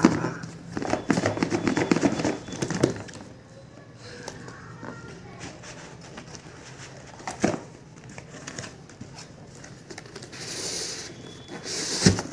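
Cardboard shipping box and its plastic packing tape being handled and pulled open: dense crackling and scraping for the first few seconds, a single sharp knock midway, then a hissing slide near the end as the snug-fitting inner product box is drawn out.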